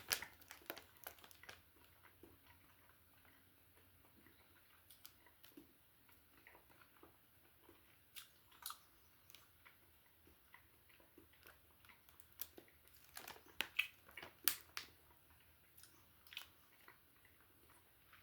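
Faint chewing of gummy fruit snacks: scattered soft mouth clicks and smacks, busier for a couple of seconds near the end.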